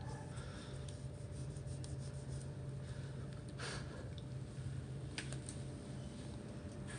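Light rubbing and a few faint clicks as a monitor's flat ribbon-cable connector is scrubbed clean of dust, over a steady low hum.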